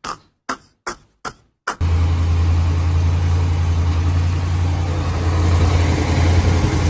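A series of short sharp pulses, about three a second, then the 2015 Ram 1500's 5.7 L Hemi V8 running at a steady idle about two seconds in. There is no exhaust tick, a sign that the manifold leak from the broken header bolts is cured.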